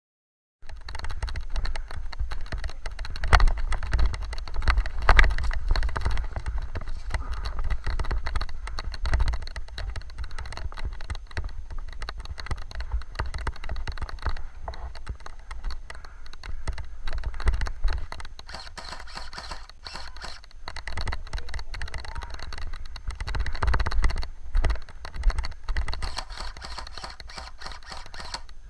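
Rapid footsteps through marsh brush and rustling, rattling gear from a player on the move, over a low rumble of wind and handling on the microphone. It starts abruptly about half a second in.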